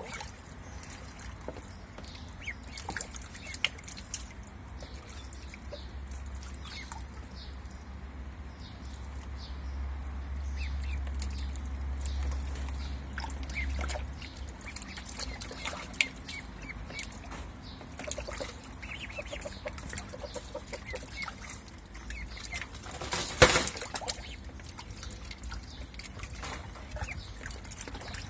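Ducklings splashing and dabbling in a shallow plastic tub of water, with scattered small splashes and soft duck calls, and one louder splash about 23 seconds in.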